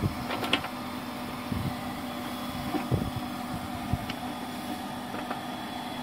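Electric booster pump motor running with a steady hum. A few light knocks and rustles come from the cable being handled against the pump's panel box.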